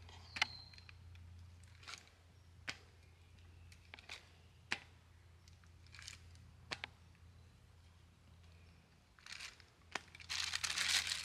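Wood campfire crackling with scattered sharp pops about once a second. Near the end comes a louder crinkling of plastic packaging as the tortillas are handled.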